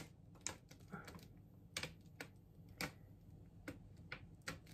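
Faint, irregular light clicks of a metal spoon against a cup as soy sauce is poured onto it, measured out by the tablespoon.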